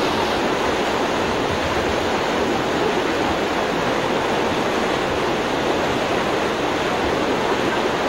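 A fast-flowing river rushing steadily, a constant noise of running water.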